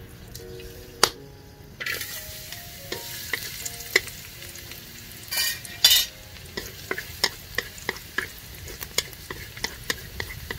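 Minced garlic dropped into hot oil in a wok and sizzling; the sizzle starts suddenly about two seconds in, with louder bursts a few seconds later. Wooden chopsticks click and scrape on the wok as the garlic is stirred.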